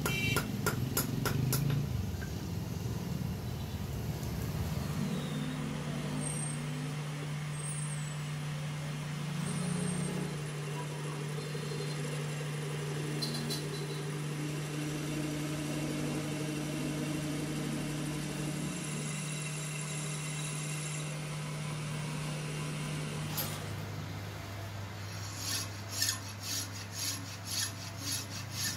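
Water sloshing as a steel rod is swished by hand in a tub, then a metal lathe running with a steady hum while a cutting tool turns the steel. Later the hum drops lower, and a hand file rasps against the spinning blade in a run of quick strokes near the end.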